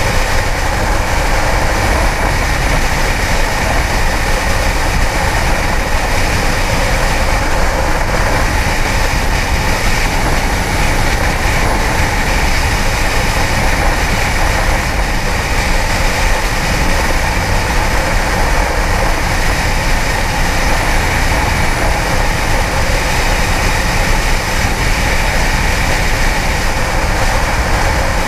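Kawasaki ZX-10R inline-four sportbike riding at a steady pace: engine running under a steady rush of wind noise, with no revving or gear changes.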